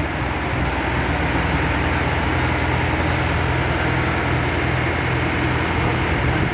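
A crane's heavy engine running steadily with a low, even drone.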